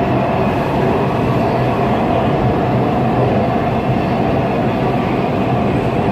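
Breda A650 subway car running through a tunnel, heard from inside the car: a steady rumble of wheels on rail with a steady tone running underneath.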